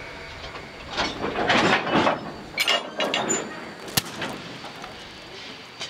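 Narrow-gauge railroad cars being switched as flat cars are set out: a couple of seconds of loud rushing and clattering noise, then a single sharp clank about four seconds in.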